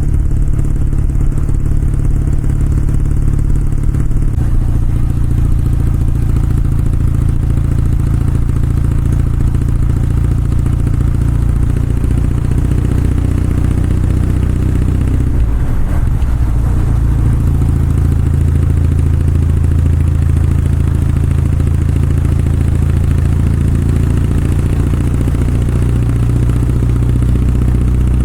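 Kawasaki W650's air-cooled parallel-twin engine and exhaust running steadily. About halfway through, its pitch dips briefly and then comes back.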